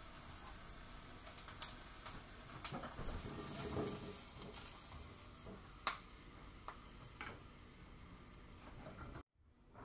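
Kitchen handling sounds: plastic wrap crinkling and being pressed over a drinking glass, then a steel frying pan tipped over a ceramic bowl as pieces of stir-fried konnyaku are pushed in with chopsticks, with soft scraping and a few sharp clinks, the loudest about six seconds in. The sound cuts off suddenly near the end.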